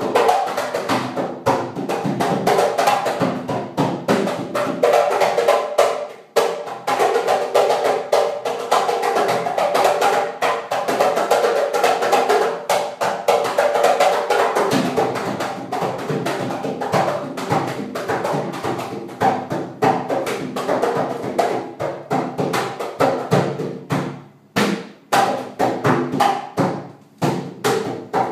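Rapid, drum-like thumping against a sliding closet door, many hits a second with hardly a break, then coming in shorter runs with brief pauses near the end.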